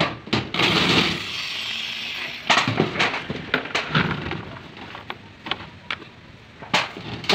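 Corded electric drill driving a self-drilling tek screw into corrugated galvanized iron roofing. It runs steadily for about two seconds, then stops. Afterwards come sharp metallic clanks and rattles as the sheet is handled and the drill is set down on it.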